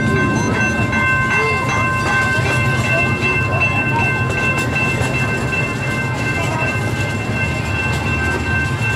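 A small park ride train rolling along its track, heard from on board: a steady low rumble of wheels, with a few steady high-pitched tones ringing over it.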